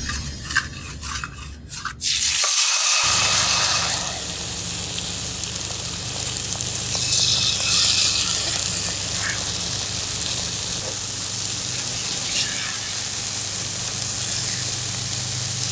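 Jang-tteok pancake batter frying in a generous layer of hot cooking oil in a stainless pan. There are a few light clicks first, then the sizzle rises suddenly and loudly about two seconds in as batter goes into the oil. It settles to a steady sizzle while more batter is ladled on.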